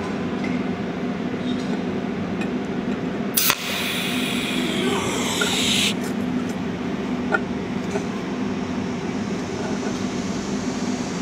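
Cold welding machine humming steadily. About three and a half seconds in, its torch strikes with a sharp crack and gives a high hiss for about two and a half seconds, then cuts off suddenly as the tungsten tip fuses the broken coil of a steel spring.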